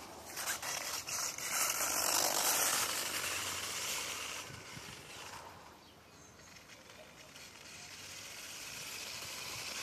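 LRP Blast TX brushless electric RC car running fast over paving stones: a high hiss of motor and tyres, loudest in the first few seconds, dying away around six seconds in as the car drives off, then building again near the end.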